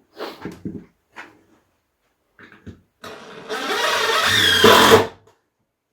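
A few light knocks of boards being handled, then a power drill driving a screw into red oak for about two seconds.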